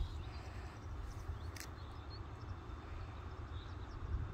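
Wind rumbling on the microphone, with a few faint bird chirps and one sharp click about a second and a half in.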